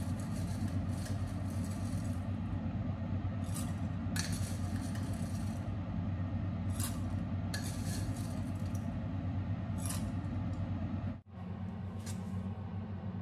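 Dry fusilli pasta spooned out of a glass jar into a stainless steel saucepan: a metal spoon scrapes and clinks against the jar a handful of separate times, over a steady low hum.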